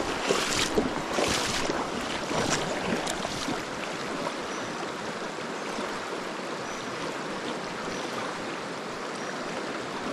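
Fast mountain river rushing over a shallow stony riffle, a steady wash of water noise that is a little louder in the first few seconds.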